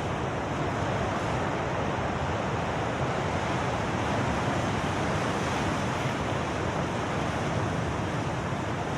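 Rough sea surf: a steady rush of breaking waves.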